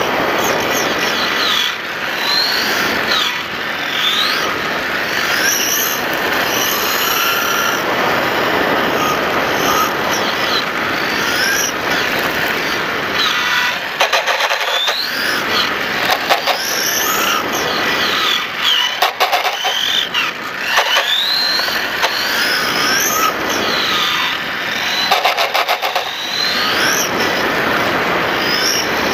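Motor of a 1/5-scale radio-controlled motorcycle, heard from its onboard camera, revving up and down over and over as the bike runs around a circuit. Its high whine rises and falls every second or two. Stretches of rattling clicks come about halfway through and again a few seconds later.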